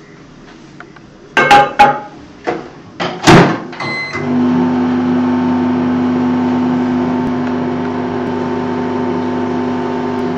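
A few loud knocks and clicks and a short beep, then a microwave oven starts and runs with a steady hum from about four seconds in.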